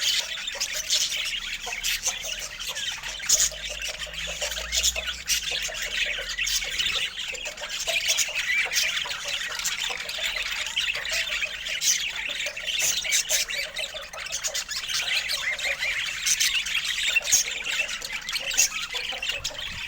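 Budgerigars chattering and squawking without a break, a dense mix of warbles and short sharp calls.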